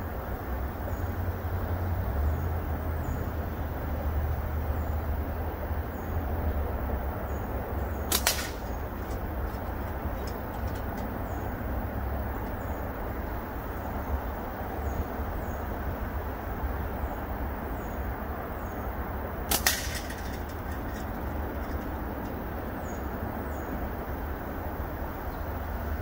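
Slingshot with Snipersling .5 bands shot twice, about eleven seconds apart, each shot a sharp snap as the bands release. A steady low rumble runs underneath.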